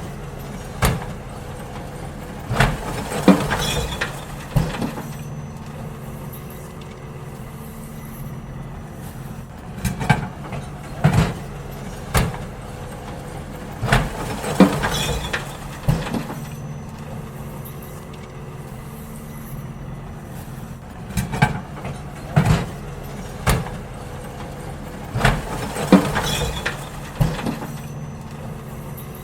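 Garbage truck running steadily while emptying bins, with three rounds of loud clanks and bangs from the bins being lifted, shaken out and set down, about every ten seconds.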